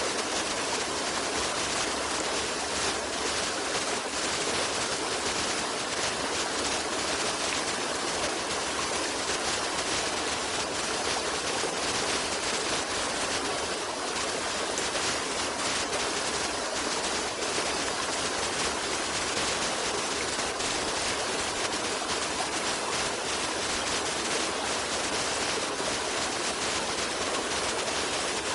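Running water, a steady even rush like a stream, with no separate splashes or other events.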